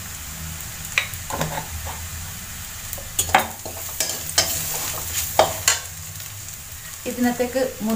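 A metal spatula scrapes and knocks irregularly around an aluminium kadai as sliced onions and ground spices are stirred, over a steady sizzle of frying in oil.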